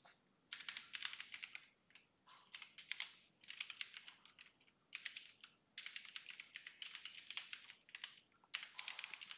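Faint typing on a computer keyboard: quick runs of key clicks in several bursts with short pauses between them.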